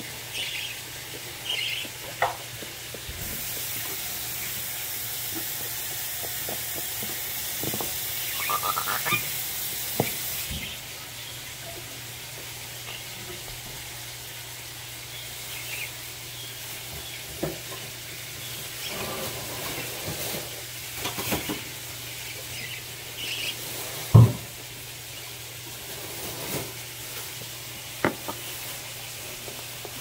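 Faint short chirps from parrot chicks, with scattered clicks and knocks of handling on a counter and one loud knock a little before the end. A steady hiss starts about three seconds in and stops about ten seconds in, over a low steady hum.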